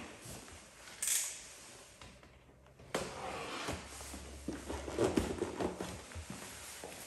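Hands handling a cardboard box and a utility knife slitting the tape along its top seam: a scrape about a second in, a sharp tap near the middle, then a run of short scrapes and small knocks.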